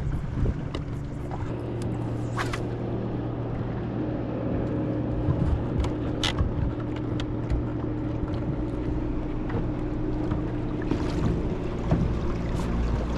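Bow-mounted electric trolling motor humming steadily under water and wind noise around a bass boat, with a few sharp clicks.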